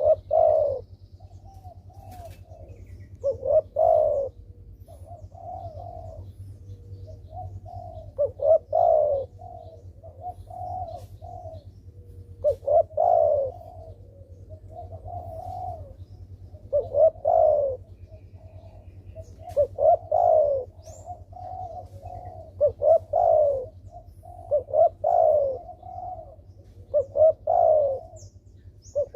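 Spotted dove cooing repeatedly: groups of two or three loud coos about every four seconds, with softer cooing between. Faint short high chirps of a small bird come now and then, over a low steady hum.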